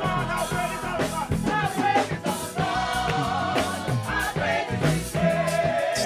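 Gospel choir singing with a live band playing under them.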